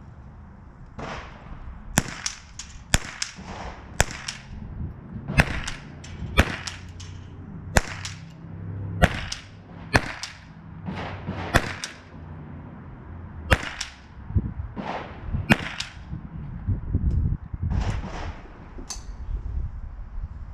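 .22 rimfire rifle shots fired in a string, about fifteen sharp cracks mostly around a second apart, with longer gaps between them near the end.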